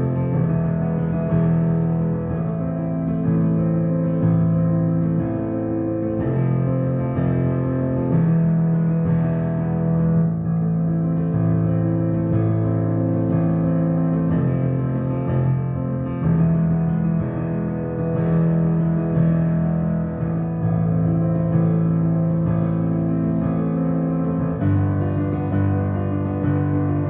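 Keyboard playing sustained chords in a minor i–i–♭VI–V progression, the chords changing every second or two.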